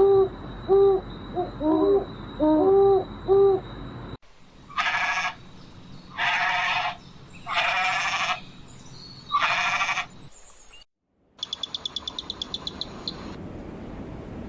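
Three different animal calls, one after another. First comes a series of about six short hoots. Then four harsh calls, each under a second long. Last is a rapid trill of about fifteen clicks.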